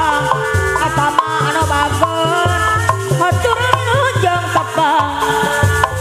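Loud live Sundanese topeng ensemble music over a PA: hand drums beating a steady rhythm under held tones and a wavering, ornamented melody.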